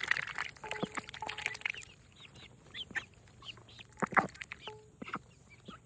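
Pekin ducks feeding, their bills clicking rapidly with short quacks and chirps in between and a louder clatter about four seconds in.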